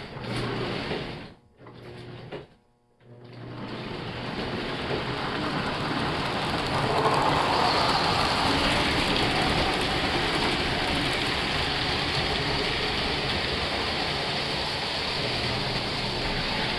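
Model train running along the track: a steady mechanical whir of motor and wheels, cutting out twice briefly in the first few seconds.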